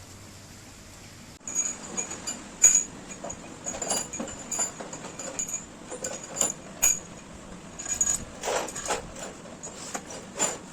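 Metal parts and hand tools clinking and knocking irregularly against each other, with short bright ringing tones, starting about a second and a half in.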